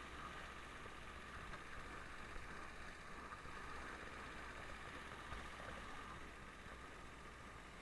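Faint, steady, muffled running of a Lada Niva driving slowly through deep snow, mostly a low hum under an even hiss, picked up by a camera mounted on the outside of the car.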